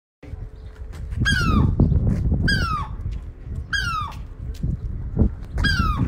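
A gull calling in alarm: four short, loud cries, each falling in pitch, roughly a second or two apart, as it warns an intruder away from its chick. A low rumble of wind on the microphone runs underneath.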